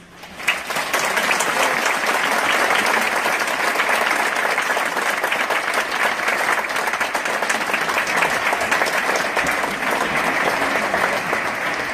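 Audience applauding, starting sharply about half a second in and continuing steadily, easing off near the end.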